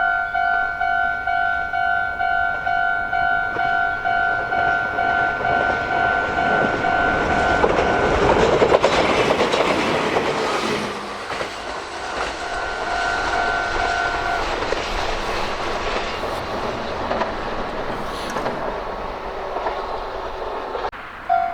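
Japanese level-crossing alarm bell ringing about twice a second as a Meitetsu train approaches and passes through the crossing, loudest as the train goes by. The bell stops about two-thirds of the way in while the train runs on.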